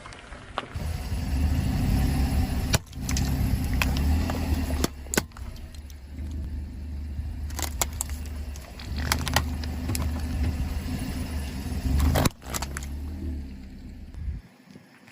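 Car running and rolling slowly, with a steady low rumble, as several objects crack and crunch under its tyres. There are about five sharp cracks, the loudest near the start and about two-thirds of the way through, and the rumble fades out near the end.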